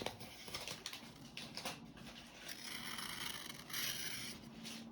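Freshly sharpened pocket knife blade slicing through paper: soft papery hissing with small crinkles and ticks, in two longer strokes after the middle and near the end.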